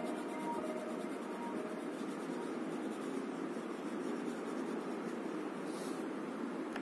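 Orange colored pencil scratching steadily on paper as it shades in a drawing, in continuous rubbing strokes.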